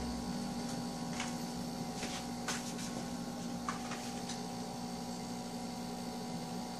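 Steady low electrical hum, with a few faint soft clicks in the first four seconds.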